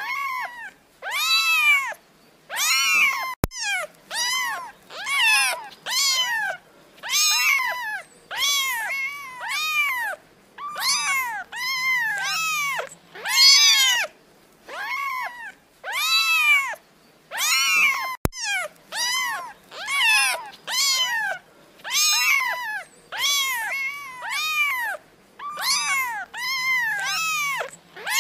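Kittens meowing over and over, a high-pitched meow about once a second, each rising then falling in pitch.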